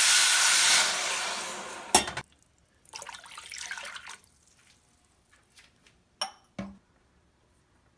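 Water poured from a cup into a cooking pan, twice. The first pour is long and loud and fades out, followed by a sharp knock. The second pour is shorter and quieter. Two short knocks come near the end.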